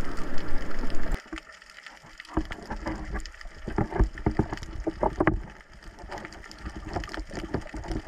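Small boat on the sea: a steady rushing noise that cuts off abruptly about a second in, then a quieter stretch of irregular knocks and splashes.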